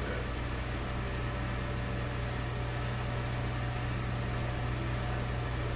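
Steady low hum of background room noise, unchanging throughout.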